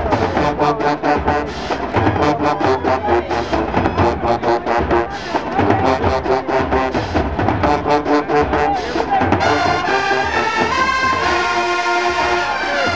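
Marching band brass and drums playing: a fast drum beat drives the horns until about nine seconds in, then the horns hold long chords.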